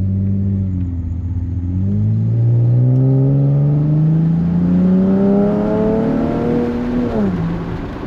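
3.6-litre Pentastar V6 of a Ram 1500 pickup through a Magnaflow Pro Series turn-down cat-back exhaust, accelerating up to about 45 mph, heard from the cab with the windows down. The engine note rises steadily for several seconds and drops with an upshift near the end: pretty quiet, a nice little grunt.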